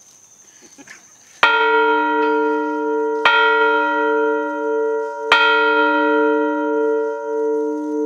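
A 1,000-pound 1904 mill bell (factory bell) rung by pulling its rope: three strikes about two seconds apart, starting about a second and a half in, each ringing on into the next, with a slow pulsing in its low hum.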